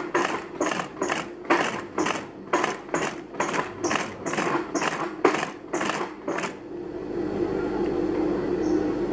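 Old black treadle sewing machine stitching slowly, about three stitches a second, then stopping about six and a half seconds in.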